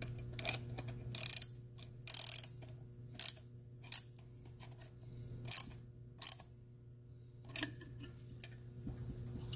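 Ratcheting wrench clicking in short, irregular bursts, with small metal taps, as a blind-hole puller is tightened into a gearbox detent bore.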